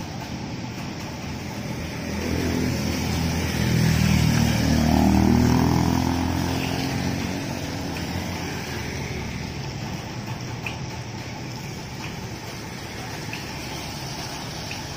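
Street traffic on a wet road: a motor vehicle's engine grows louder and passes by between about two and seven seconds in, then fades, over a steady hiss.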